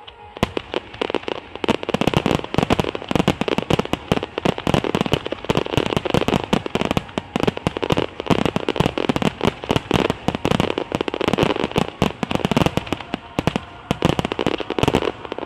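Aerial fireworks bursting in a rapid, dense barrage, many bangs a second, which stops abruptly just before the end.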